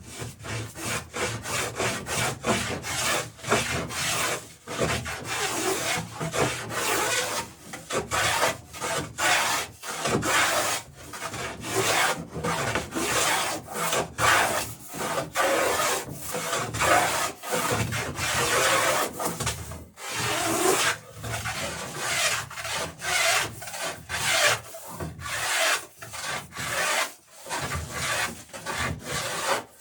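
Repeated strokes of a hand woodworking tool cutting along wooden planking, about one or two rough rasping strokes a second, as the plank bevels are faired in.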